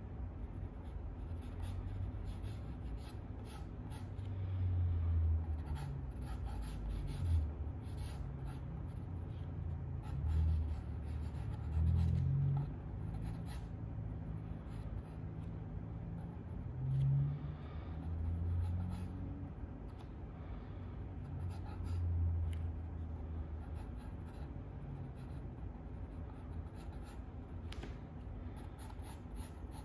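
Drawing strokes scratching on sketchbook paper, steady and continuous. Several low rumbling swells come and go in the first two-thirds.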